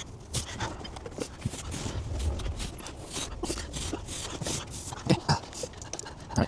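Irregular light clicks and knocks of tools and parts being handled, with a few louder knocks near the end.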